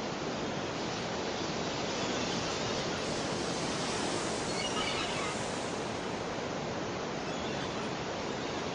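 Steady rush of ocean surf, swelling a little a few seconds in.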